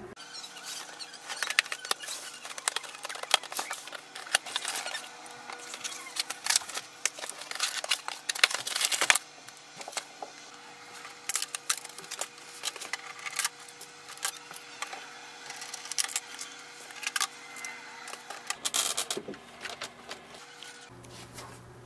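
A cardboard printer box and its packing being handled and unpacked: irregular rustles, scrapes and clicks, busiest in the first nine seconds and sparser after.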